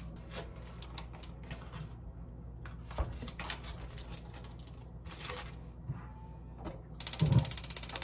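Faint handling sounds and light knocks, then about a second before the end a low knock and a gas stove's electric igniter starts clicking rapidly and evenly as the burner is turned on.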